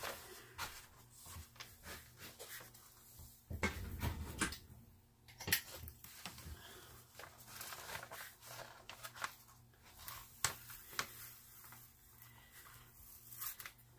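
Clear plastic protective cover being peeled back off the sticky adhesive of a diamond painting canvas, with the canvas pressed flat by hand: scattered crackles and rustles of film, and a dull thump about three and a half seconds in.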